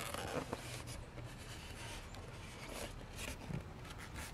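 Styrofoam packaging shell scraping and rubbing as it is slid across a table and pulled apart, with a few small clicks.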